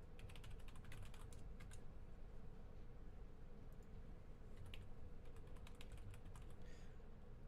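Computer keyboard typing: a quick run of keystrokes in the first two seconds, then a few scattered keys, over a faint steady hum.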